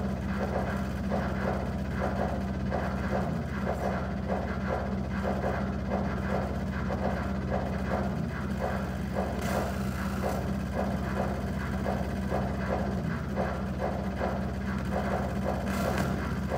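Glitch-art electronic soundtrack played over the hall's speakers: a steady low drone with a buzzy pulse repeating about three times a second, and a brief burst of hiss partway through.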